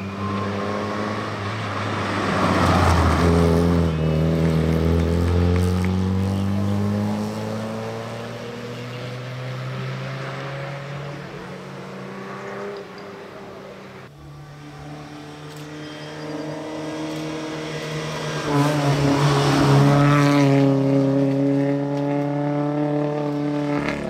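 Classic rally cars' engines driving past on a stage. One car goes by a few seconds in, its engine note falling as it pulls away. About 14 seconds in the sound cuts to another car, whose engine is loudest around 19 to 20 seconds.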